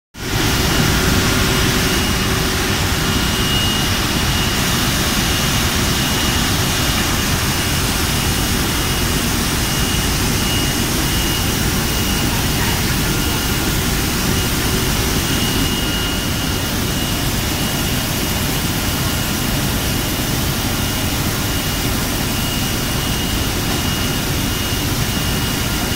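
Steady loud machinery noise of a running water-bottling line with its bottle conveyors, with a faint steady high whine held throughout.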